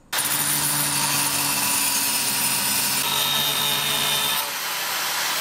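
Angle grinder with a cut-off wheel cutting through metal tubing: a steady grinding hiss over the motor's hum, starting abruptly and changing slightly about four seconds in.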